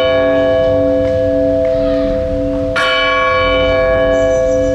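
Bell chimes over steady held tones in a television programme's intro jingle: the bell rings on, is struck again about three seconds in, and its overtones fade slowly.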